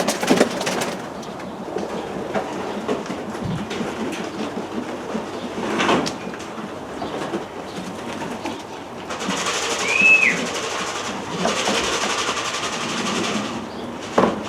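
Pigeons cooing over a steady rumbling background, with a single short high chirp that rises and falls about ten seconds in.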